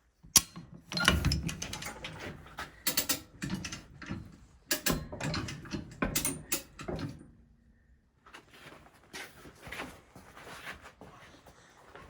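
Metal clanks, clicks and rattles as plow-mounting hardware is handled and fitted. They come as a sharp click and then a busy run of clatter for several seconds, stop briefly, and return as fainter knocks near the end.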